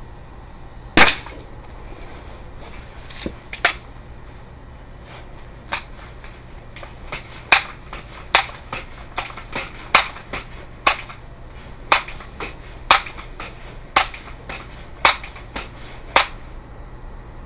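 A scoped air rifle fires once, a loud sharp crack about a second in, followed by a single softer crack a few seconds later. After that comes a long run of sharp clicks, about two a second.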